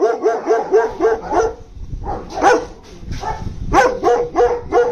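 German Shepherds barking from their cages: a quick run of short, yappy barks for about the first second and a half, then single barks spaced out, with several in quick succession near the end.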